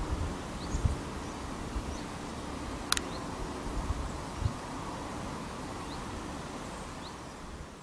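Outdoor ambience: a steady low rumble with a few soft thumps, faint short high chirps here and there, and one sharp click about three seconds in. The sound starts to fade near the end.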